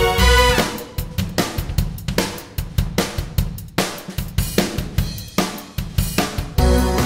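Background music breaks down to drums alone, a drum-kit beat of kick, snare, hi-hat and cymbal with the melody dropped out. The full backing music with bass and melody comes back just before the end.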